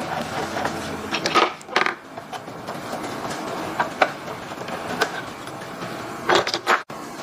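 A hand screwdriver backs out screws from the plastic housing of a wood thickness planer, with scattered clicks and clinks of metal on plastic. There are clusters of knocks about a second in and again near the end.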